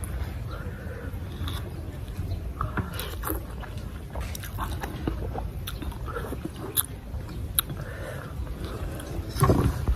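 Close-up eating sounds: a man slurping and chewing instant noodles, with short clinks of a fork and spoon against a metal bowl over a steady low rumble. A louder burst of noise comes just before the end.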